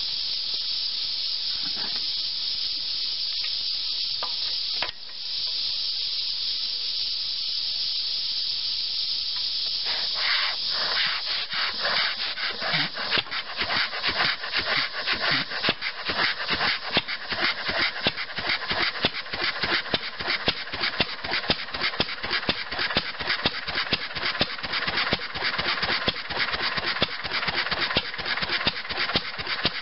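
1930 Fairbanks-Morse Model Z 3 hp throttle-governed flywheel engine catching about ten seconds in and running, its exhaust beats coming quickly and evenly. Before it fires there is only a steady high hiss.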